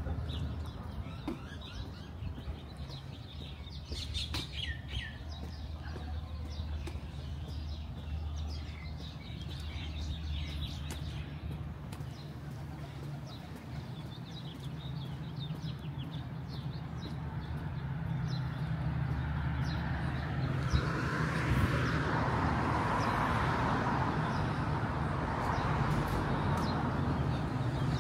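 Street ambience: small birds chirping over a steady low traffic hum. Traffic noise swells and stays louder for the last several seconds.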